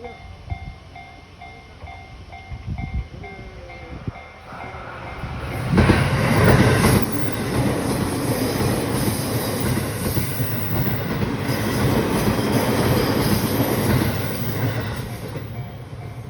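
Japanese level-crossing warning bell ringing in a steady repeating pattern. About five and a half seconds in, a train suddenly arrives and passes over the crossing, its wheels rumbling loudly on the rails for roughly ten seconds before easing off near the end.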